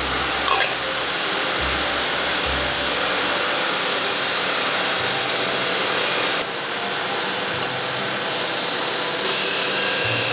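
Steady whir of running polishing and buffing machines, electric-motor-driven abrasive and cloth wheels. A short knock comes about half a second in, and the high hiss drops away about six seconds in.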